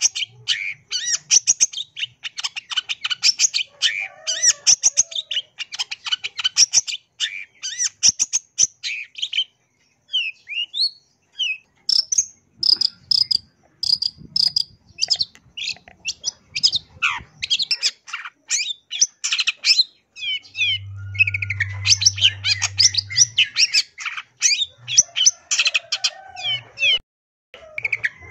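Long-tailed shrike (cendet) singing a fast, varied chatter of high notes packed with mimicked calls of other birds, with brief lulls about a third of the way in and near the end.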